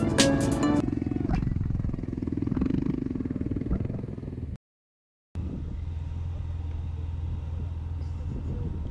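Quad bike engine running with a dense low rumble; it drops out to dead silence for a moment just after halfway, then the quad idles with a steady low hum.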